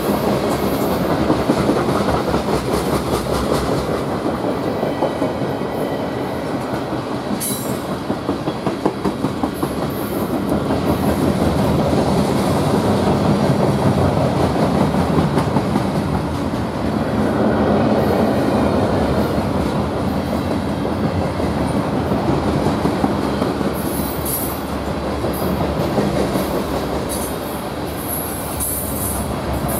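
Freight train cars rolling past, their wheels clicking rapidly and steadily over the rail joints with a continuous rumble. Short high-pitched flashes come about seven seconds in and again in the last few seconds.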